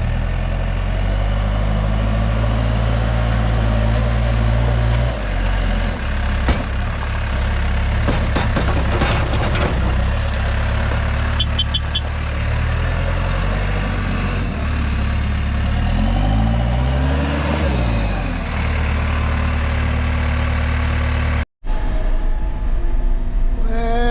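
Backhoe engine running as the machine is driven. Its tone shifts about five seconds in, and later its pitch rises and falls again. The sound cuts out for an instant near the end.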